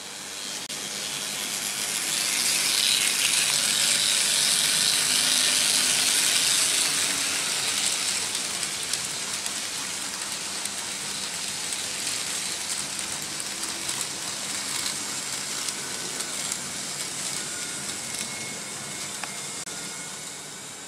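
Several Märklin H0 model trains running on vintage metal M-track: a steady rushing rattle of small wheels on the metal rails, loudest a few seconds in and then easing off a little.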